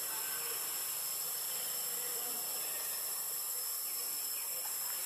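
Steady high-pitched insect chorus: a continuous buzz with two shrill tones held level throughout.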